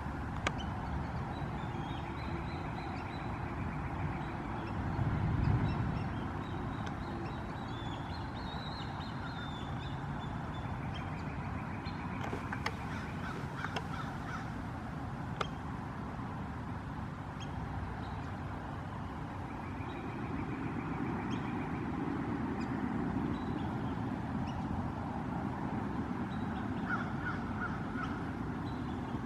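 Black-bellied whistling-ducks calling from a tree: scattered short, high whistles and chatter, over a low background rumble that swells twice.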